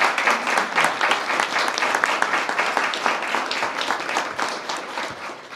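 An audience applauding: many hands clapping in a dense, steady patter that thins out near the end.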